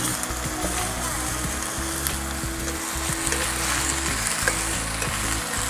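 Eel pieces frying in hot oil with ginger and onion: a steady sizzle with scattered sharp crackles.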